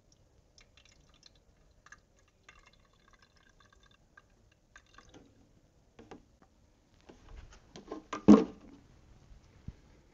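Coolant poured from a plastic jug through a funnel into a motorcycle's plastic overflow reservoir, trickling and dripping as it fills. A brief louder knock comes about eight seconds in, with a small click shortly after.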